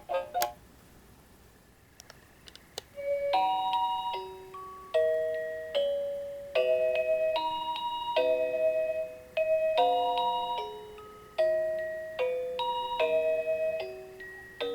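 Seiko NR435P quartz alarm clock's electronic melody alarm: one tune stops just after the start, a few faint clicks follow about two seconds in, then a new chime-toned melody begins about three seconds in, its bell-like notes each ringing and fading.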